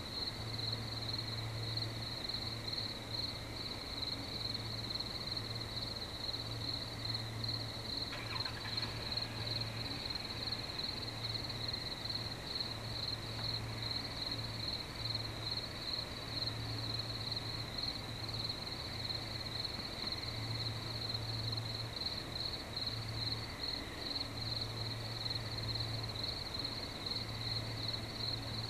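A night insect chorus: a steady, high-pitched, rapid pulsing that never lets up. Under it runs a low hum that comes and goes.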